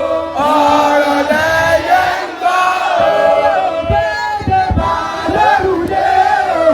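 Voices chanting in a sung style, with long held notes that bend in pitch.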